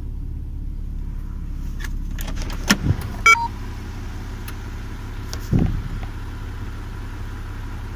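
Toyota 1JZ-GE inline-six idling steadily once warm, with electrical load switched on, and no squeak or crackle from the drive belt and its freshly replaced tensioner. A couple of clicks and a short electronic beep come about three seconds in, and a soft thump a little later.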